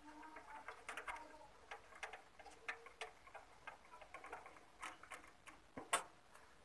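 Faint, irregular small clicks and ticks of a screw being turned in by hand with a screwdriver to fasten a printer mainboard, with a couple of sharper clicks near the middle and end.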